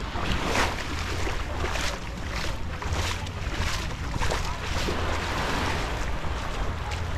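Wind rumbling on the microphone over surf washing on a sandy beach, with a regular soft crunch recurring a little under twice a second.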